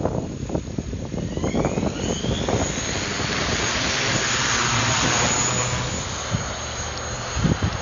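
Electric motors and propellers of a JMRRC X1000 crop-spraying multirotor drone spinning up with a rising whine, then running as a loud, dense whir as it takes off carrying a full spray load.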